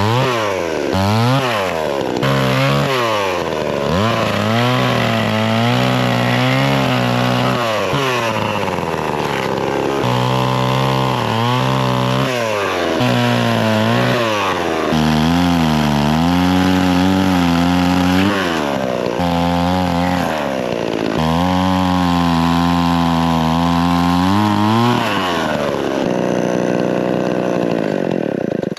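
Chainsaw cutting firewood, its engine revving up and down again and again with held stretches at full throttle, then cutting off suddenly at the end.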